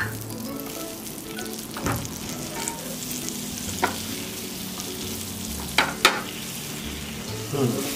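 Butter sizzling on a hot flat iron tawa around a toasting sandwich, a steady crackling hiss. A plastic spatula pushing the butter around scrapes or taps the pan a few times, about every two seconds.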